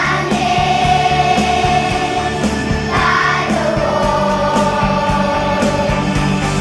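Children's choir singing two long held notes over a backing track with a steady beat.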